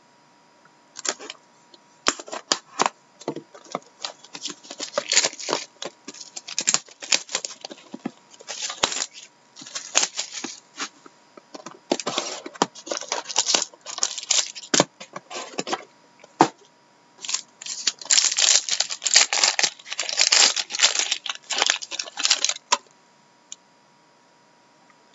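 A sealed trading card box being opened by hand: its wrapping and cardboard are slit, torn and crinkled in an irregular run of rips, scrapes and rustles, which stop about two seconds before the end.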